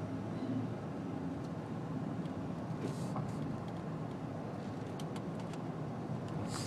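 Car running on the road, heard from inside the cabin: steady low engine and road noise, with a few faint clicks.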